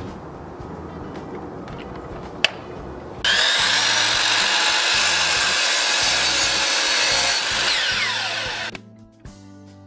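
Compound miter saw starting up about three seconds in and cutting through a wooden chair rail moulding, loud for about four seconds, then the blade spinning down with a falling whine until it stops near the end. Background music plays underneath.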